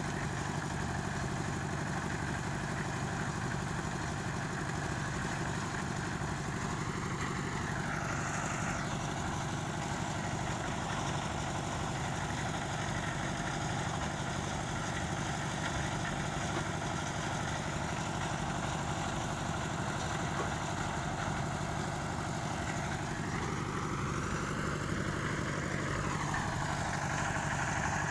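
Construction machinery engine running steadily. Its pitch rises and falls back about eight seconds in, then rises again for a few seconds near the end before settling.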